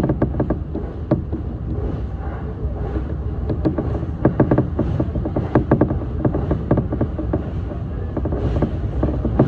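JR East E233 series electric train running at speed, heard from inside the front of the train: a steady rumble with repeated clusters of quick clicks as the wheels run over the track.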